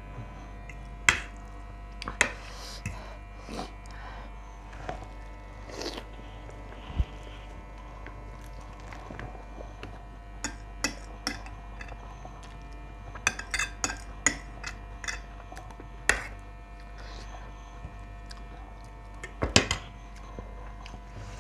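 Metal fork and spoon clinking and scraping against plates: single sharp clicks a few seconds apart, with a quick run of clinks around the middle. A faint steady hum runs underneath.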